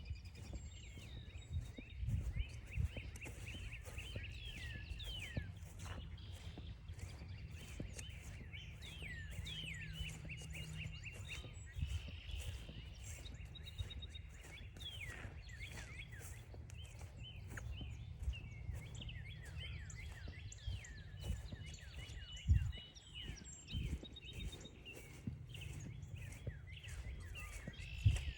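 Many wild birds chirping and calling in a busy chorus of short, quick notes, with footsteps on a forest trail and a few thumps over a steady low rumble.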